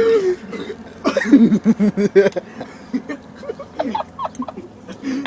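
Young people laughing hard: a quick run of 'ha-ha' bursts a second in, then scattered chuckles.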